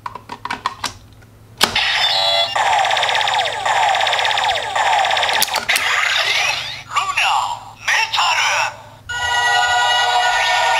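Kamen Rider W CSM Double Driver toy belt: a few plastic clicks as the Metal Gaia Memory is pushed into its slot, then the belt's electronic sound starts suddenly with a rhythmic standby loop of falling sweeps. About six seconds in, a click as the driver is opened into its W shape sets off a recorded voice announcement, and transformation music follows from about nine seconds on.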